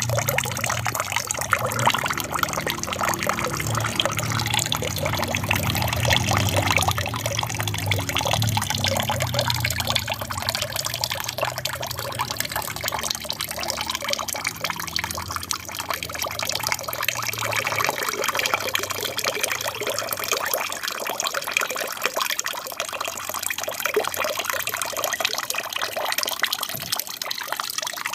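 Water splashing and trickling steadily down a small aquarium waterfall, with a low hum underneath that fades out about two-thirds of the way through.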